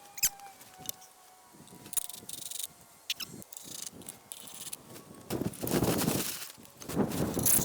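Work on a wooden log being cut down: scattered clicks and knocks, then two rough scraping bursts, each about a second long, in the second half.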